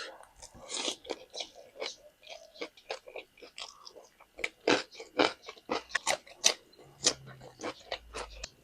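A person chewing and biting crunchy food, giving an irregular run of short, sharp crunches, several a second.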